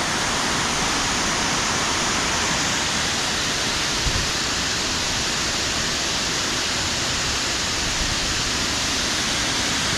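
Waterfall rushing steadily, its water sliding down a sloping rock wall into a splash pool.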